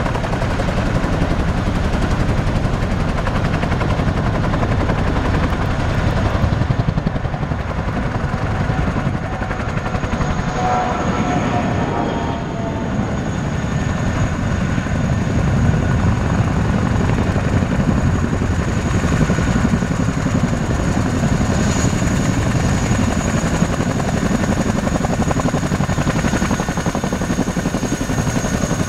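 Boeing CH-47F Chinook tandem-rotor helicopter running on the ground: the rapid beat of its two rotors, with the steady high whine of its twin turboshaft engines.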